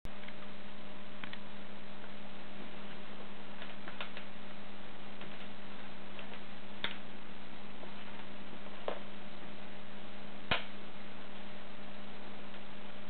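A steady hum over an even hiss, with a few isolated small clicks, the sharpest late on.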